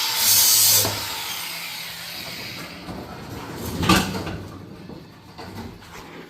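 Harsh metal scraping with a falling screech, loudest in the first second and then fading, followed by a single heavy bang about four seconds in: old cab sheet metal being forced loose and dropped.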